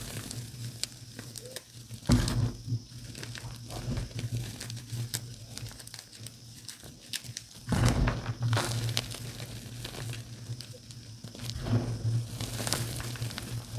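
Dyed gym chalk crunching and crumbling as it is squeezed between the fingers, a steady run of gritty crackles. There are louder crushes about two seconds in, about eight seconds in, and again near the end.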